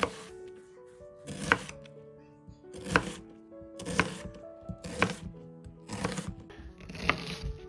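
Knife cutting food on a chopping board, one stroke about every second, over background music.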